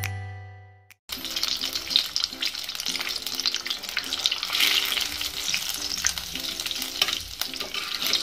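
Battered paneer pakoras deep-frying in hot oil on high flame: a dense, steady sizzle and crackle, stirred and lifted with a perforated steel skimmer. A musical chime fades out over the first second, then the frying cuts in abruptly.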